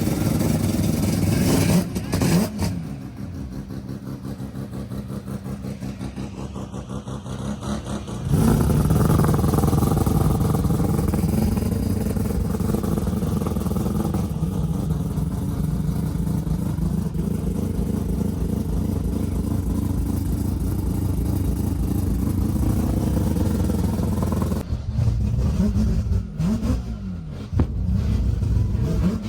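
Performance car engine running. It drops to a quieter, fast-pulsing idle about two seconds in, comes back up loud and steady about eight seconds in, and revs up and down several times near the end.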